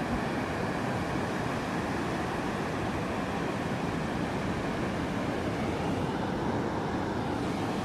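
Atlantic surf washing up a sand beach: a steady, even rush of breaking waves.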